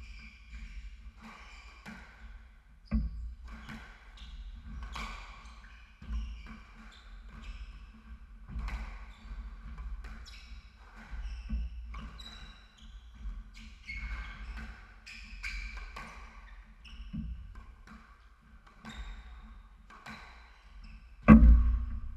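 Squash rally: the rubber ball cracking off rackets and the court walls about once a second, with sneakers squeaking on the hardwood floor. A loud heavy thud near the end.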